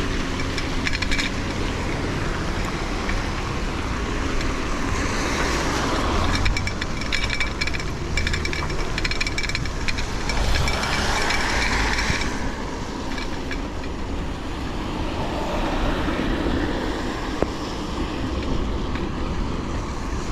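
Riding a bicycle: steady wind rumble on the camera microphone and road noise. A stretch of rattling and louder rushing runs from about five to twelve seconds in.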